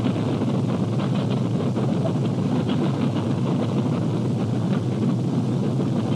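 Steady rumble of a running vehicle on an old, worn film soundtrack, with faint ticking through it and no break.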